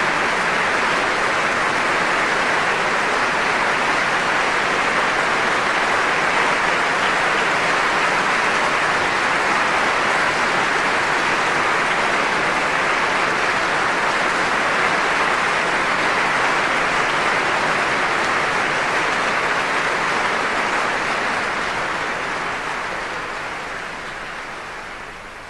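A large audience applauding, a dense, steady clapping that fades out near the end.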